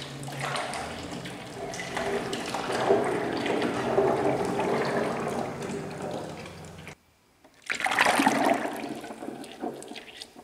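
Used hydraulic oil pouring in a stream from a tipped plastic lift reservoir into a funnel drain pan, splashing into the oil already pooled in it. The pour breaks off briefly about two-thirds of the way through, then starts again and tapers off near the end.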